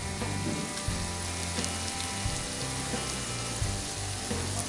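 Salmon, potatoes and vegetables sizzling in a baking tray as their juices cook down, a steady hiss dotted with small crackles and pops.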